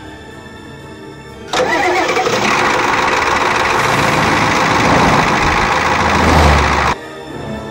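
Truck engine starting and running loudly, kicking in suddenly about a second and a half in and cutting off abruptly some five seconds later. Soft music plays before and after it.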